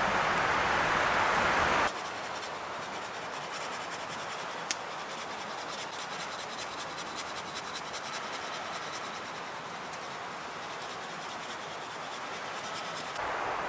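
Wind rushing through the conifer canopy, cutting off sharply about two seconds in. After that a quieter steady hiss with many small ticks and scratches, and one sharper click about five seconds in.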